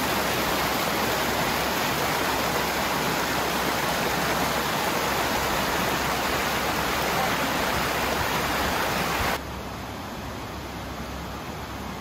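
Mountain creek running high, rushing and splashing over rocks in small cascades: a steady, loud rush of water. About nine seconds in it drops suddenly to a quieter, more distant rush.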